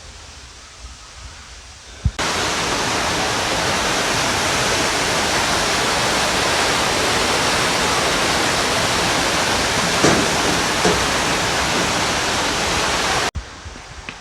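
Steady loud rush of a waterfall. It cuts in suddenly about two seconds in and cuts off just as suddenly near the end, with a couple of small knocks on top.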